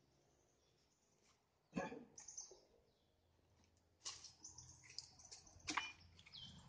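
Near silence broken by a few scattered clicks and knocks, one about two seconds in and more from about four seconds on, from handling an Ogawa Pro chainsaw as its cover is taken off to reach the air filter. A few short, high chirps come between the knocks.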